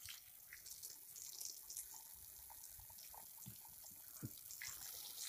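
Faint hose water running and splashing over fish being rinsed by hand in a basin, with a few small knocks.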